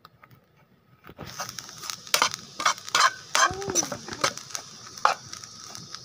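Metal spoon stirring and scraping grated coconut dry-roasting in a pan, with sharp clinks of spoon against the pan, starting about a second in.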